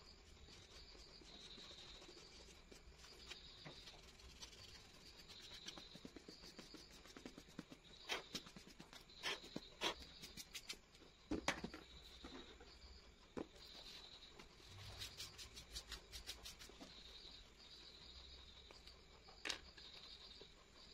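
Rubber eraser rubbing over drawing paper, with scattered clicks and taps, thickest in the middle of the stretch and once sharply near the end. A steady, high, pulsing chirp runs underneath.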